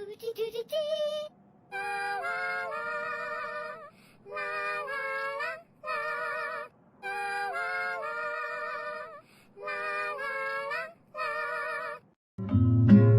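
A high, wordless singing voice in about seven short phrases with vibrato, separated by brief pauses. Near the end louder music with a strummed guitar comes in.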